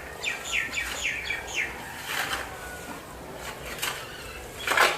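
Small birds chirping: a quick run of short, falling chirps in the first couple of seconds, then a few more, with a brief loud rush of noise just before the end.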